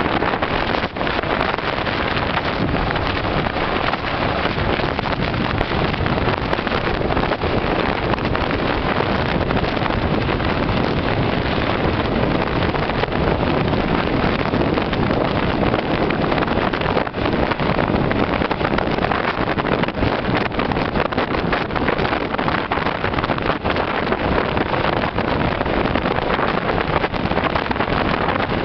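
Helicopter hovering close by: a loud, steady rotor and engine din, with the rotor downwash buffeting the microphone.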